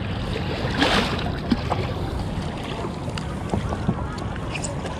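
Water swishing and lapping along the hull of an inflatable stand-up paddle board as it glides, with wind on the microphone. A brief louder splash comes about a second in.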